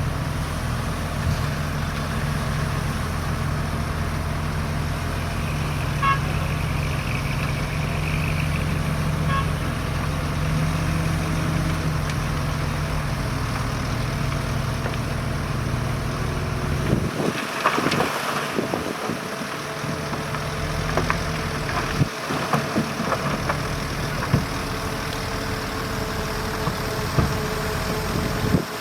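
Bulldozer's diesel engine running steadily. About two-thirds of the way through, the low engine hum drops away abruptly and scattered clanks and rattles take over.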